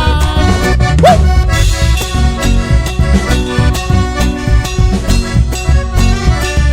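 Chamamé band playing, an accordion carrying the melody over a strong bass and a steady dance beat.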